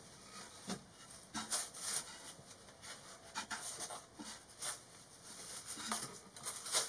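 Irregular soft rustling and rubbing as loose denim insulation is stuffed by hand into the wall cavities around a van's side window.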